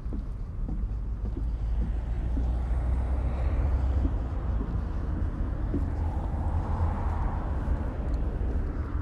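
Wind buffeting the microphone as a steady low rumble, with footsteps ticking faintly. Distant traffic noise swells about three seconds in and again near seven seconds, as a vehicle passes.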